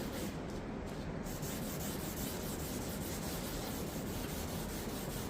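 Rhythmic back-and-forth rubbing on a wooden dresser top as its old finish is scrubbed off by hand, a steady scratchy rasp.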